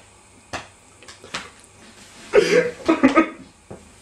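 A few faint clicks, then a person's voice: a loud outburst a little over halfway in, followed by a few quick short pulses.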